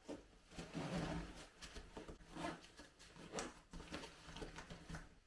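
Plastic bin-bag pack liner and fabric stuff sacks rustling and crinkling in irregular bursts as a stuffed sleeping bag is pushed down into a backpack.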